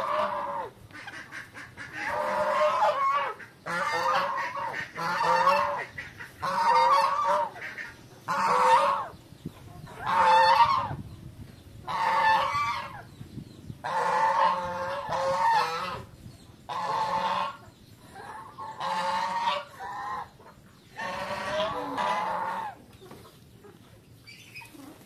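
White domestic geese honking in a long series of loud, pitched calls, one every second or so.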